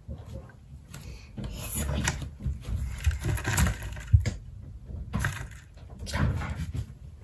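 Beetles' legs and claws scratching and scrabbling on corrugated cardboard, with irregular sharp clicks, the loudest about four seconds in.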